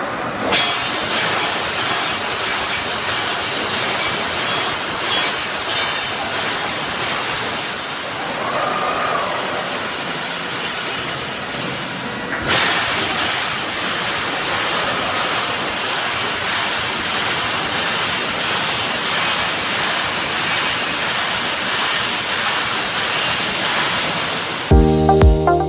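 Pneumatic wire mesh welding machine running, a steady hissing machine noise with a brief break about halfway through. Music starts near the end.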